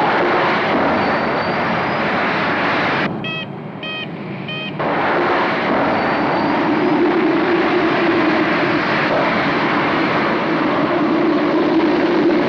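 Dramatised explosive decompression in a jet airliner cabin after a bomb blast: a loud, dense rush of air tearing through the cabin. About three seconds in the rush drops for a moment while three short beeps sound, then the rush returns.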